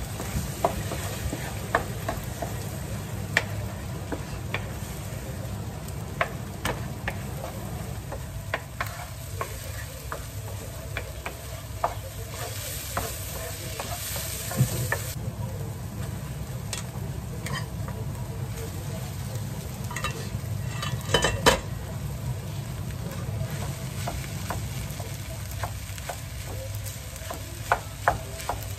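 Wooden spatula stirring and breaking up scrambled egg and fried rice in a nonstick frying pan over a gas flame, with frequent short taps and scrapes of the spatula against the pan over the food's sizzle. A louder clatter of knocks comes about three-quarters of the way through.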